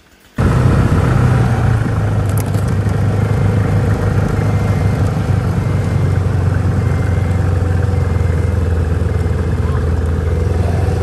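Snowmobile engine running steadily while riding along a packed snow trail, cutting in suddenly just after the start.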